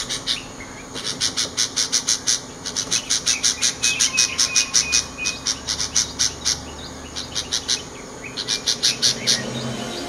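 Bulbul giving rapid runs of short, high chirps, about four or five a second. After a pause it gives a second, shorter run near the end.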